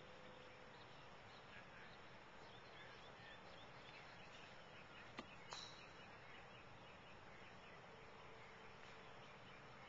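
Near silence: faint outdoor ambience with light chirping, broken by two short sharp clicks about five seconds in.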